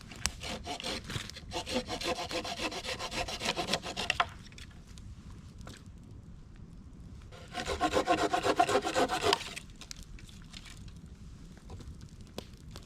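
Small hand saw cutting through a branch of wood in fast back-and-forth strokes: a long spell of sawing, a pause, then a shorter second spell.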